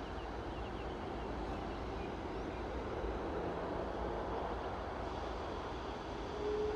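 Airbus A330-300 jet engines heard as a steady rushing noise with a faint whine. Near the end a loud whine comes in and climbs in pitch as the engines spool up.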